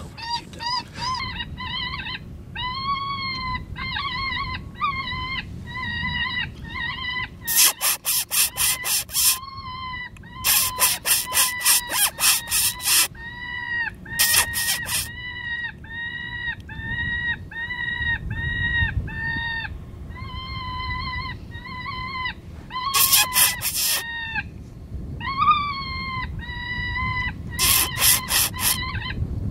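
Electronic predator caller playing a whimpering distress sound, short cries repeated over and over at a steady pitch, to lure coyotes. Five bursts of rapid, harsh clicking chatter break in between the cries.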